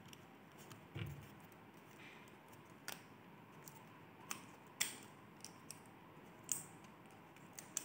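Wooden popsicle sticks and a rubber band being handled: about half a dozen faint, scattered clicks and ticks as the rubber band is wound on to bind one end of a stick whistle.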